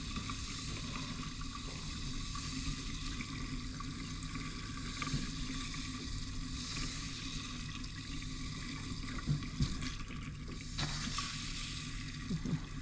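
Water running steadily from a tap, left open to flush antifreeze out of the cabin's freshly refilled water lines.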